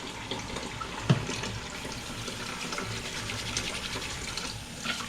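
Kitchen tap running into the sink while oily hands are washed under it, with a short knock about a second in.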